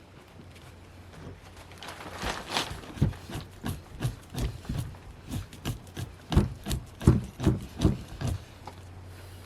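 Hand tool scraping and fleshing a fresh moose hide in repeated short strokes, about two to three a second, each a dull thud with a scratch. The strokes begin about two seconds in and stop shortly before the end.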